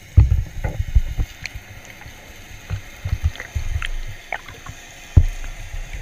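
Muffled underwater sound picked up by a GoPro in its waterproof housing: low thumps and rushes of water as the camera moves through the sea, with faint scattered clicks. The strongest thumps come just after the start and again about five seconds in.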